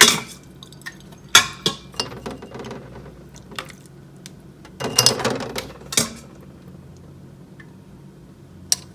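Metal utensils and glass canning jars clinking and knocking against a pot while chicken broth is ladled out, with a few sharp knocks and a louder half-second clatter about five seconds in.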